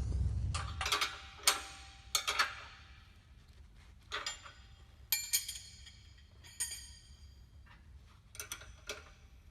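Hand tools clinking against the steel row-unit brackets as bolts are tightened: a string of sharp, ringing metallic clinks, irregularly spaced about a second apart.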